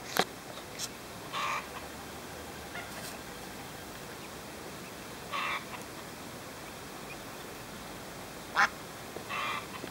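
An adult duck quacking three times, a few seconds apart, with a few short sharp clicks in between.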